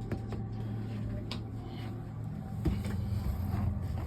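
A few faint taps of a finger on the unresponsive Yale lock touchscreen keypad, with no beep in reply because the keypad is not powering on, over a steady low hum.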